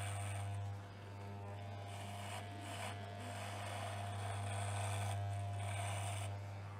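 Electric hair clippers buzzing steadily while cutting hair close to the scalp. The buzz dips and swells a couple of times as the blade works through the hair.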